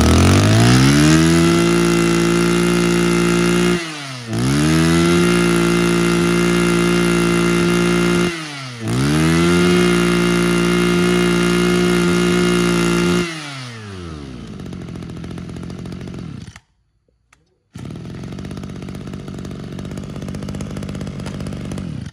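Mitsubishi TL261 26 cc two-stroke brush cutter engine revved up to full speed and held there three times, each time dropping back as the throttle is released. After the third it falls to a low idle and cuts out about sixteen seconds in, followed by a steady rushing noise.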